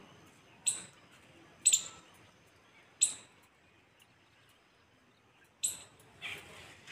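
A bird calling in short, sharp, high chirps, four in all, spaced irregularly about one to two and a half seconds apart, over faint outdoor background.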